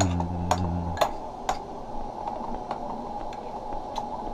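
Utensils clicking and clinking against a ceramic rice bowl as food is mixed and scooped, in short scattered taps. A man's brief low hum in the first second.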